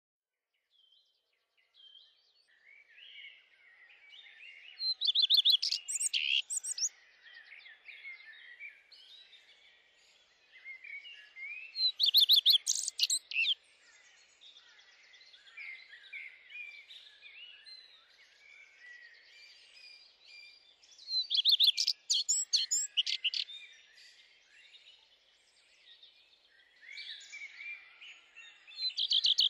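Songbirds singing: continuous quieter chirping from several birds, broken four times by a loud song phrase that ends in a fast trill.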